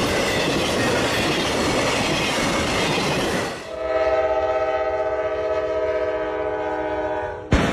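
A train passing close by with loud rumbling rail noise. About three and a half seconds in, a locomotive air horn sounds one long, steady chord for about four seconds, then cuts off abruptly.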